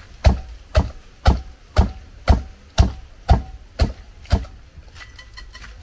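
Small bundle broom (ewedu broom) beating soaked jute leaves in a pot: nine strikes, about two a second, each a sharp knock with a thump. They stop about four seconds in, leaving only faint light taps, as the leaves are mashed smooth for ewedu.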